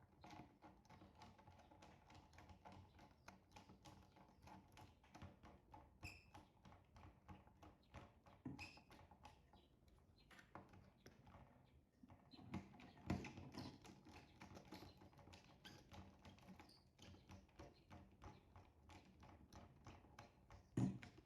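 Faint, irregular clicks and taps of hand work, with wires and a screwdriver being worked into a contactor's terminals.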